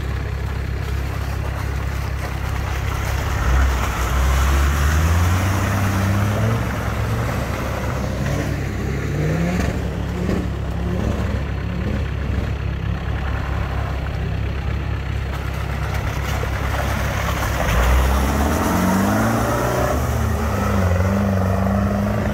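Off-road 4x4 engine running hard under load, revving up twice with its pitch climbing, once about four seconds in and again late on, over a steady low rumble.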